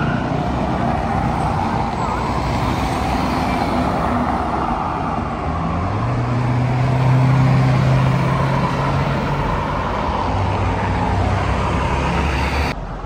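Road traffic: motor vehicles running past with steady engine hum and tyre noise, one passing louder about seven seconds in.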